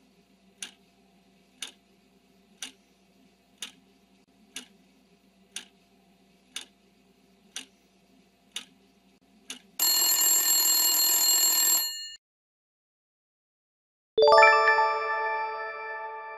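Quiz countdown-timer sound effect: a clock ticking once a second for about ten seconds over a faint hum, then a loud ringing alarm bell for about two seconds that cuts off as time runs out. After a short pause, a bright chime rings and fades as the correct answer is revealed.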